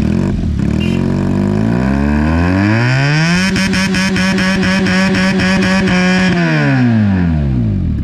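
Benelli TNT 300's parallel-twin engine revved through an Ixil aftermarket exhaust with the dB killer fitted: the revs climb steadily for about three seconds, are held high for about three seconds, then fall back to idle near the end.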